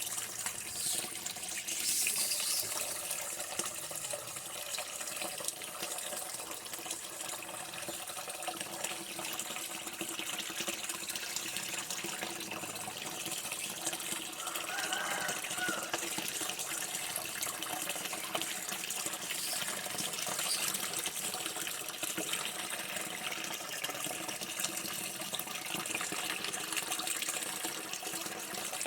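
Running water flowing steadily and continuously, with a brief small gurgle about halfway through.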